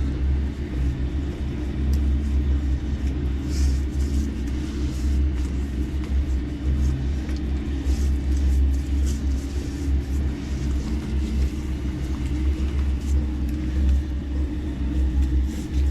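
Steady low mechanical hum from a running motor, with faint short scratchy sounds now and then.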